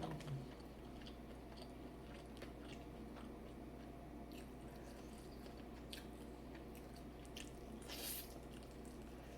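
A person chewing and eating seafood boil, with scattered small clicks and a slightly louder crunch about eight seconds in, over a faint steady hum.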